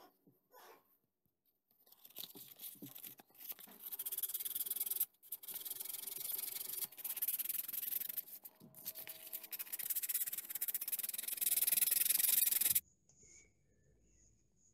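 Hand sanding a small piece of wood on a sheet of sandpaper: a continuous rasping hiss that starts about two seconds in, breaks off briefly twice, and stops abruptly near the end. Two faint taps come just before it.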